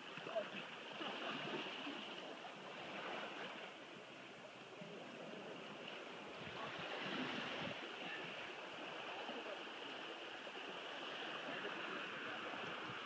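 Gentle surf washing on a sandy shore among boulders, a steady, even wash of water.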